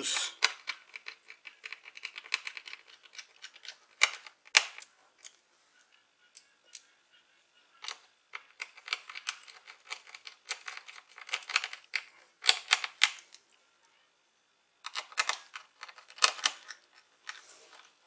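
Small screwdriver driving the screws that hold a 2.5-inch hard drive in a laptop's drive bay: bursts of rapid metallic clicking and scraping, in groups separated by short pauses.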